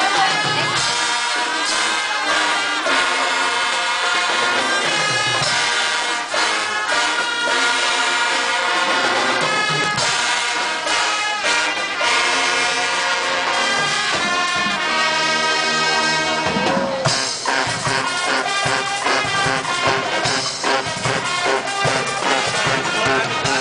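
A brass band playing: trumpets and trombones carrying the tune together, with drums keeping a steady rhythm.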